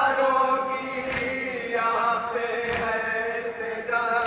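Voices chanting a nauha, a Muharram lament, in long held notes, with two sharp strikes about a second and a half apart cutting through the chant.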